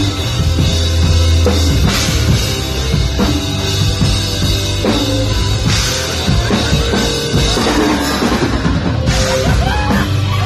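Live nu-metal band playing loud and steady: heavy drum kit with bass drum and cymbals, extra drums beaten by a standing percussionist, and distorted bass guitar.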